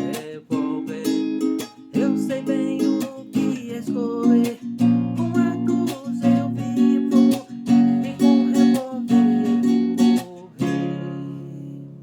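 Acoustic guitar strumming chords in a steady rhythm; a final chord rings out and fades about ten and a half seconds in.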